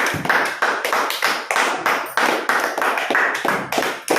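People clapping hands together in a steady rhythm, about four claps a second.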